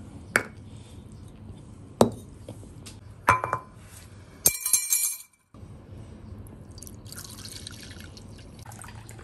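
Dishes knocking as they are set down on a tiled tabletop. Around the middle comes a glass bowl's ringing clink and clatter. Near the end, a thin stream of water is poured into a small ceramic dipping bowl.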